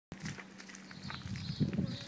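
A small child's footsteps on wet pavement, getting louder and heavier about one and a half seconds in.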